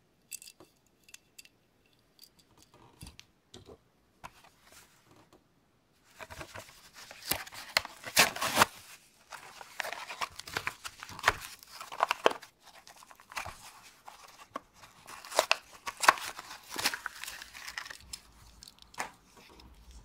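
A few light clicks, then from about six seconds in a long run of tearing and crinkling as a toy car's plastic blister pack and cardboard backing card are pulled open.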